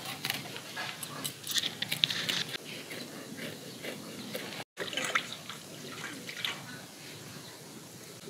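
A knife scraping the small scales off a bronze featherback (foli) fish: short rasping scrapes in clusters, thinning out near the end.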